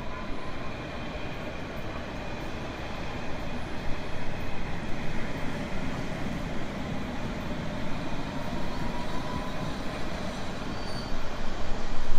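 Moving train: steady running noise of the wheels on the rails, with a faint thin whine that rises slightly around the middle.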